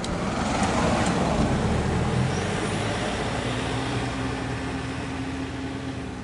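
A Toyota Land Cruiser Prado SUV's engine running as it drives up close, loudest a second or two in, then settling into a steady low hum that eases off near the end.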